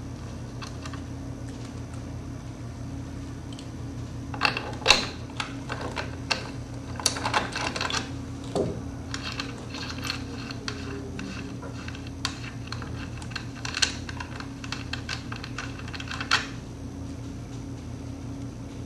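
Irregular light metallic clicks and ticks as a pal nut and jam nut are worked by hand off a tumbler fan motor's shaft and set down, starting a few seconds in and stopping near the end, over a steady low hum.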